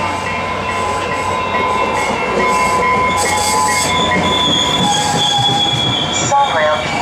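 SunRail commuter train's bilevel coaches rolling past at the platform as the train pulls into the station, their wheels squealing. The squeal is several steady high tones that change pitch as the cars pass, over the rumble of the train.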